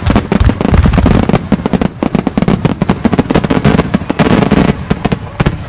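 A rapid barrage of aerial fireworks: dense, overlapping bangs and crackling bursts, many a second, which stop suddenly just before the end.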